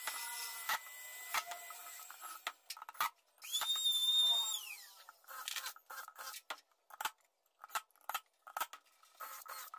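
Pine boards being handled and set in place: a series of light wooden knocks and clicks. A single high-pitched whine comes in about three and a half seconds in, holds for about a second, then falls away.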